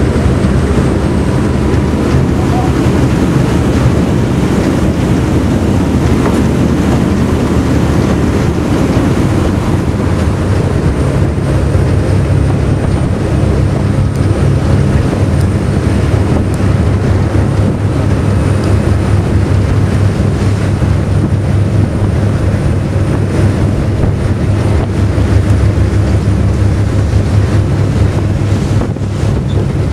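Lomprayah passenger ferry's engines running steadily under way, a constant loud low drone, mixed with rushing water along the hull and wind buffeting the microphone.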